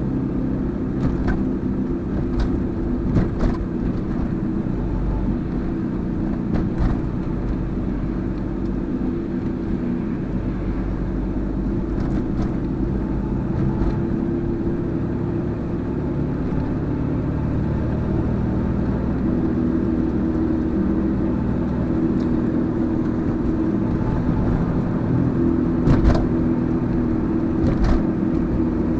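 Car engine and road noise heard from inside the cabin while driving, the engine note shifting about two-thirds of the way through. A couple of short knocks come near the end.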